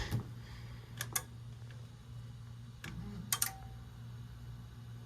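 A few sharp clicks and taps from hands and tools working at a furnace's control panel, over a steady low electrical hum.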